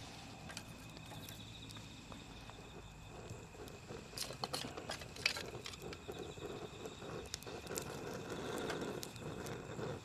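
Wood campfire crackling and popping, the crackles growing busier about four seconds in, with one sharp loud pop just past five seconds.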